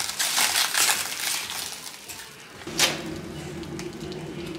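Plastic stretch wrap crackling and rustling as it is pulled off a shipping box for about two seconds. Near three seconds there is one sharp knock, and then a steady low hum starts.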